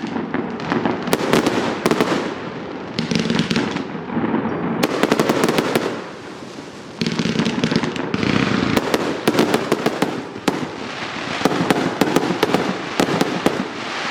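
A 168-shot fireworks cake firing: rapid volleys of sharp bangs and crackling, dipping briefly about six seconds in before the shots pick up again.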